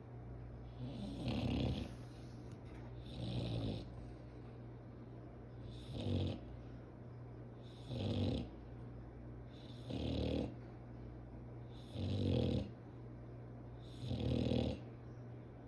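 Dog snoring in its sleep, a snore about every two seconds, seven in all.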